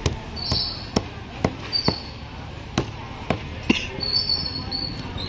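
A heavy cleaver chopping through fish onto a wooden log block: about eight sharp chops at an uneven pace, roughly one every half second.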